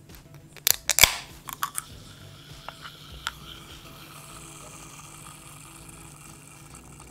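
A small ketchup packet being picked and torn open by hand, its plastic wrapper crinkling and clicking: a quick cluster of sharp crackles in the first two seconds, the loudest about a second in, then a few fainter ones.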